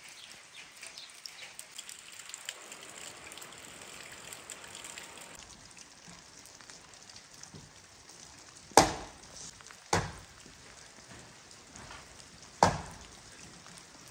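Steady rain falling, with three loud, sharp knocks about 9, 10 and 12.5 seconds in.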